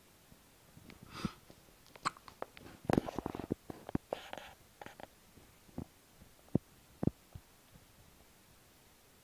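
Baby hiccupping: short, sharp hics mixed with breaths and small rustling sounds. The busiest stretch comes about three seconds in, and single sharp hics follow near the middle.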